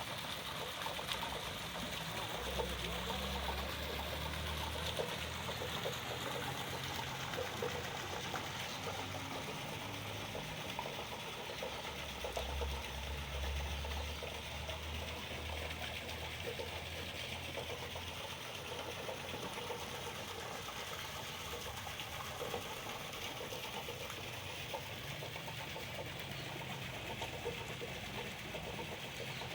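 Water fountain running: steady splashing and trickling water, with a low hum that swells twice.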